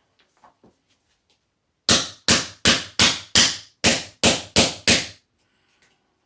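About nine quick hammer blows, about three a second, smashing open a small part off a washing machine motor to get at the little bits of brass inside.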